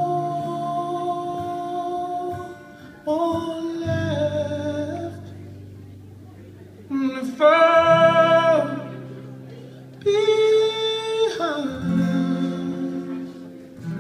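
A male singer with an acoustic guitar performing live: several long held sung notes, without clear words, over ringing guitar chords, the loudest held note about halfway through.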